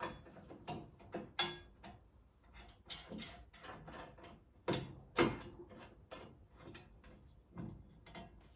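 Irregular clicks and knocks of parts being handled and fitted while a table saw is set up, with two louder knocks, one about a second and a half in and one about five seconds in.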